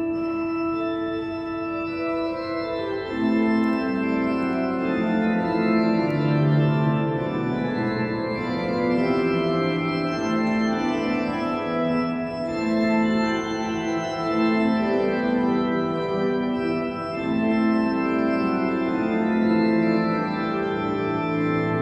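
Blackburn Cathedral's pipe organ playing: a held chord, then about three seconds in a lower part enters and the music grows louder, with notes moving over sustained harmony.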